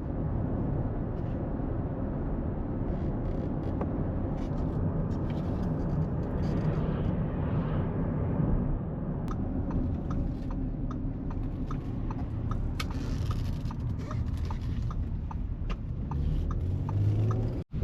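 A car driving along, with a steady low road and engine rumble heard from inside, and light scattered ticks in the second half.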